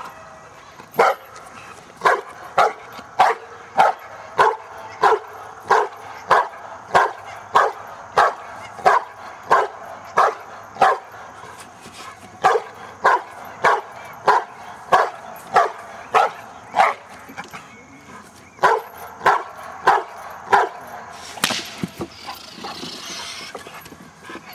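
A 14-month-old American Bulldog barking steadily at a decoy during protection table work, about two barks a second, with brief pauses. A single sharp snap comes near the end.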